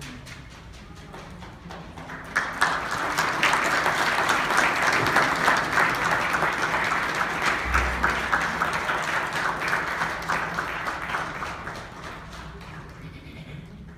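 A congregation applauding. The clapping swells about two seconds in, holds, then dies away near the end.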